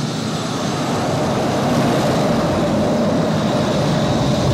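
Film sound effect of a sci-fi war machine's engine running: a steady rushing hiss with a faint steady tone under it.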